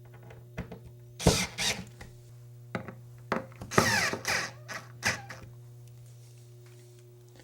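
Door sweep's screws being tightened, in short bursts about a second in and again for a couple of seconds around the middle.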